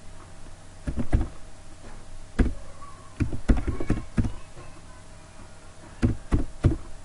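Computer keyboard being typed on: about a dozen hard keystrokes in irregular clusters with short pauses between them, as a word is typed out.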